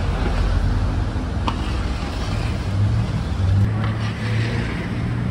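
Steady low rumble with a hiss over it, and a single sharp click about a second and a half in.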